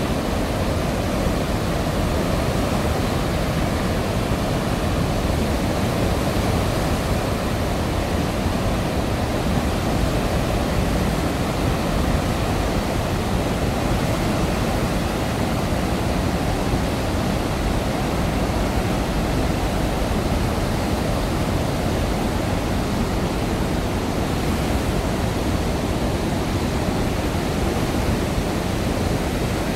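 Floodwater pouring through opened dam spillway gates and churning below them: a steady, deep roar of turbulent water. The gates are open to lower the reservoir after heavy rain.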